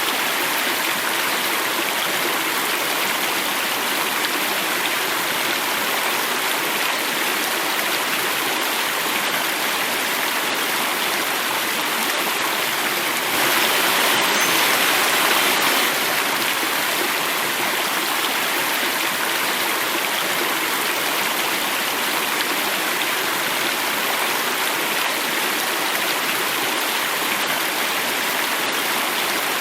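Water running and falling over rocks in a stream, a steady rushing with some splashing, swelling slightly for a couple of seconds midway.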